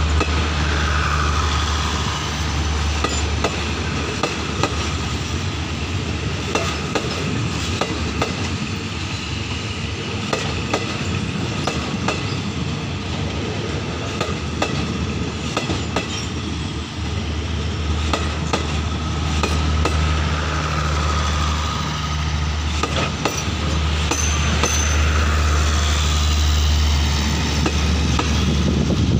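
Passenger coaches of an express train rolling past at close range, their wheels clicking and clattering over the rail joints, over a steady low hum.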